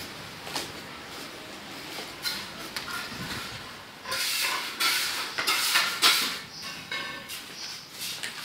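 Broken stone and concrete rubble being scraped and knocked about, in irregular bursts that get louder about four seconds in.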